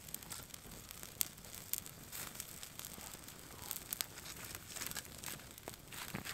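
Wood campfire crackling, with irregular sharp snaps and pops over a low hiss, a few of them louder than the rest.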